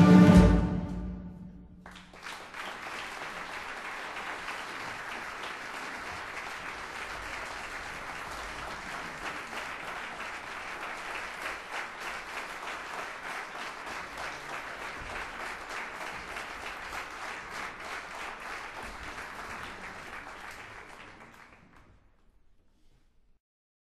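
A wind band's final sustained chord dying away, then an audience applauding steadily for about twenty seconds before the applause fades out.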